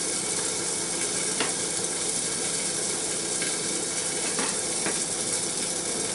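Steady sizzling of food cooking on the hob, with a few light scrapes of a spoon as scrambled eggs are stirred in a saucepan.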